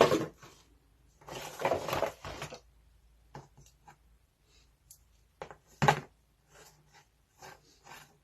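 Hard plastic handling clatter from a rotary multi-tool and its case: a knock at the start, a scraping rustle about a second in, then scattered light clicks and taps with a sharper knock near six seconds.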